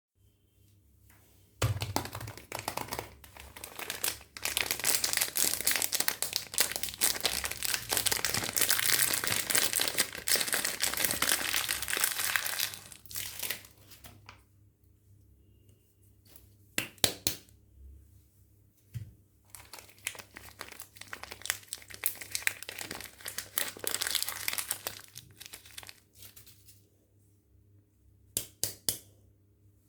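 Soap packaging being unwrapped, with long stretches of crinkling and tearing. A few sharp clicks come in the quieter second half.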